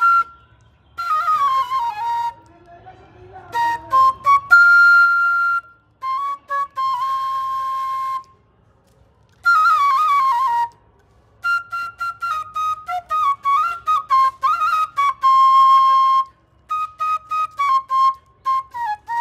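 Bamboo flute (murli) played solo: a folk melody in short phrases broken by brief pauses, some notes held long, the last phrases in quick separate notes.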